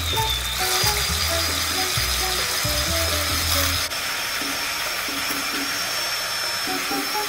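Electric hand mixer running, its beaters whisking eggs in a glass bowl: a steady high whine that steps up in pitch about a second in, over background music.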